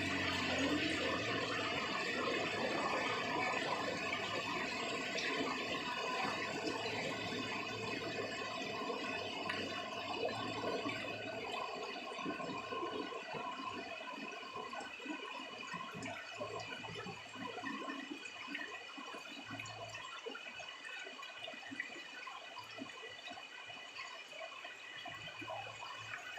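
Heavy rain pouring down as a dense, steady rush of splashing water that slowly grows quieter.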